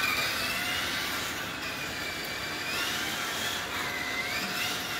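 Kyosho Mini-Z AWD MA-020 radio-controlled car's small electric motor and drivetrain whining as it drives on sticky tires, the pitch rising and falling with the throttle.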